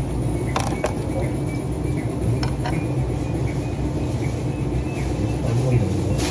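A few light clicks of a ceramic rice bowl and chopsticks knocking on a tray, two near the start and two about two and a half seconds in, over a steady low background rumble.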